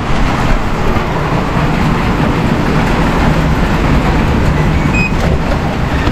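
Steady loud rush of a heavy rainstorm. About five seconds in, a keypad door lock gives a few short electronic beeps as it is worked.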